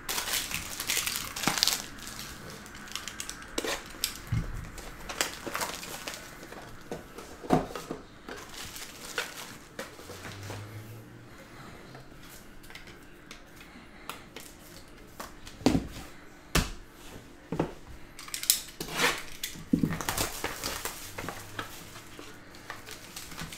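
Hands unwrapping and opening a Topps Tier One baseball card box: plastic wrap crinkling and tearing, with sharp clicks and knocks of the cardboard box handled on the mat, in irregular bursts.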